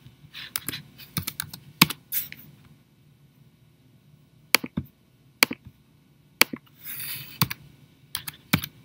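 Computer keyboard keys and mouse clicks as dimension values are typed in: a quick run of keystrokes in the first two seconds, then scattered single clicks, and a few more keystrokes near the end.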